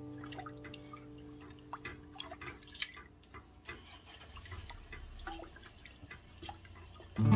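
Wooden spatula stirring thick red bean porridge in a metal pressure-cooker pot: faint sloshing and dripping with scattered light clicks.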